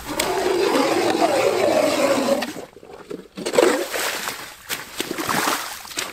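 Hand-cranked ice auger grinding into lake ice for about two and a half seconds. After a short pause comes wet splashing and scraping as the auger churns in the slush- and water-filled hole.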